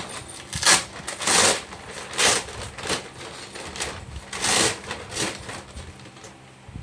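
Rustling and crinkling of an insulated delivery bag's foil-lined lining and fabric as hands work inside it, in about six short bursts, the loudest about a second in.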